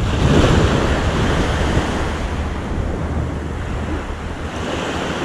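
Small surf breaking and washing up the sand at the water's edge, swelling just after the start and again near the end, with wind rumbling on the microphone.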